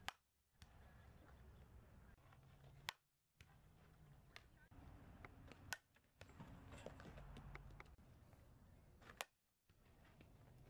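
Softball bat striking tossed softballs: four sharp, faint hits about three seconds apart, over a low background hiss.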